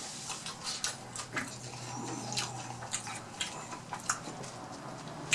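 Close chewing and wet mouth smacks of someone eating fried fish, a scatter of short irregular clicks.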